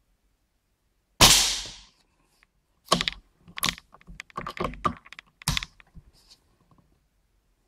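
A Crosman Airmagnum 850 CO2 air rifle fires once about a second in, a single sharp shot with a short fading tail. From about three seconds in comes a run of sharp clicks and clacks from the rifle's action being worked for the next shot.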